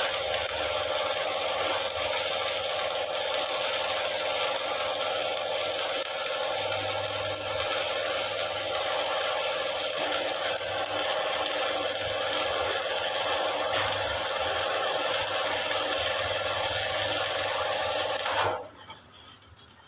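Electric arc welding: a steady, dense crackle from the arc that cuts off abruptly about a second and a half before the end, as the arc is broken.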